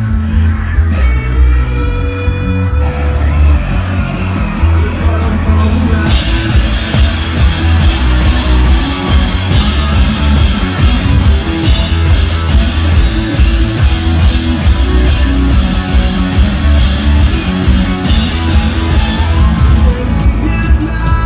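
A rock band playing live and loud, heard from the audience: electric guitar, keyboards and drums over heavy bass. The sound thickens about six seconds in as the full band comes in.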